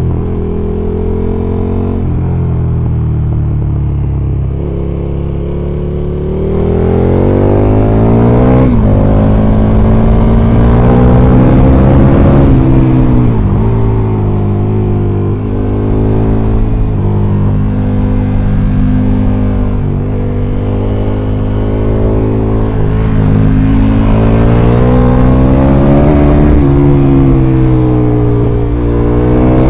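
KTM 1290 Super Duke R's big V-twin engine pulling hard on the road, steady at first, then climbing in pitch under throttle several times and dropping back sharply at gear changes and throttle-offs, with wind rush on the microphone.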